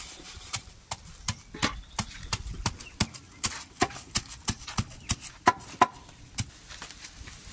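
A thick wooden stick pounding garlic cloves wrapped in a plastic bag on a wooden plank, to crush them. Dull, evenly spaced knocks come about three times a second and stop about a second before the end.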